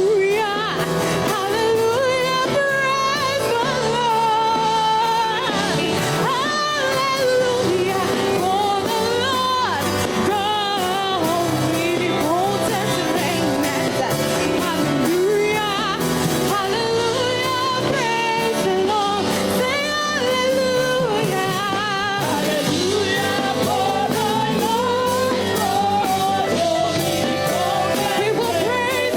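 Live worship music: voices singing over a band accompaniment with a steady beat.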